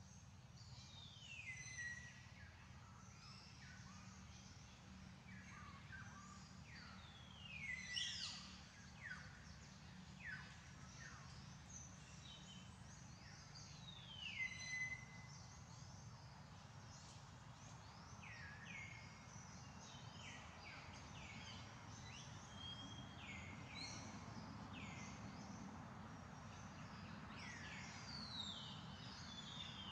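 Faint birds calling in forest: many short whistles that slide down in pitch, some ending on a brief held note, scattered throughout and loudest about eight and fifteen seconds in, over a low steady background rumble.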